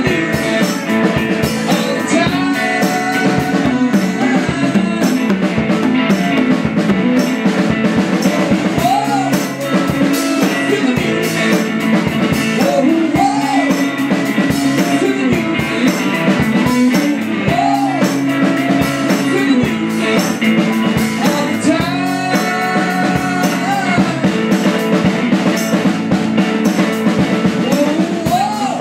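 Live rock band playing: electric guitar with conga drums over a steady beat.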